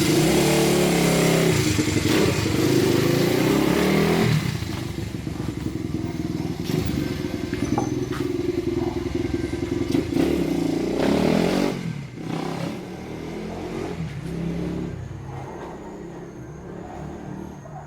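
Honda Monkey's single-cylinder four-stroke engine running and revving after a bottom-end rebuild, seemingly free of the abnormal noise that had come from the crank bearing's outer race against the crankcase. It is loud for about four seconds, drops, rises again briefly near eleven seconds, then fades steadily.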